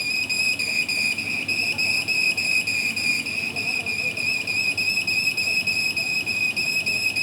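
Steady, high-pitched machine whine with a light, even pulsing, holding one pitch throughout.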